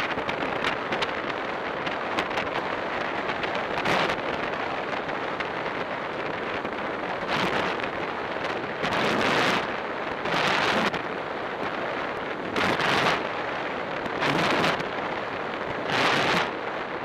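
Wind rushing over the microphone of a camera on a road bicycle racing at speed. The rush is steady, with louder gusts every second or two in the second half.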